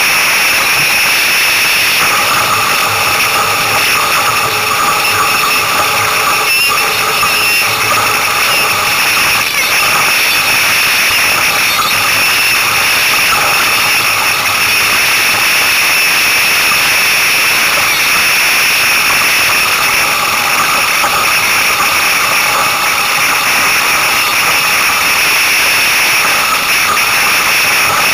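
Steady, loud rush of wind on the microphone and water streaming past the hull of an F16 catamaran sailing at speed, heard from right at the hull.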